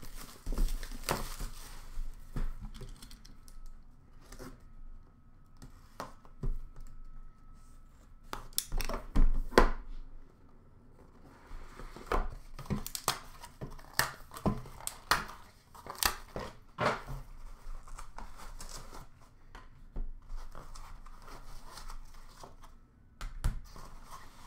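Plastic wrapping being torn and crinkled off a sealed hockey card box, with the cardboard box and its lid handled: irregular crackles, rips and knocks, loudest about halfway through.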